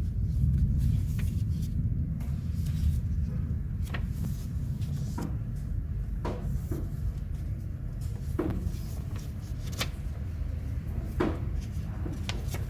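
A steady low rumble with a series of short, sharp clicks or taps, one every second or two.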